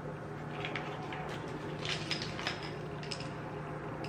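Scattered light clicks and clinks of acrylic display-case parts and small screws being handled, over a steady low hum.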